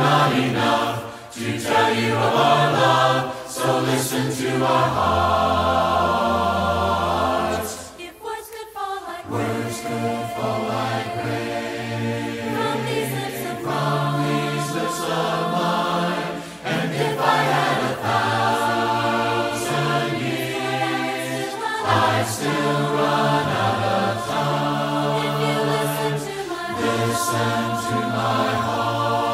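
A group of voices sings a hymn in four-part a cappella harmony, holding sustained chords, with a short break between phrases about eight seconds in.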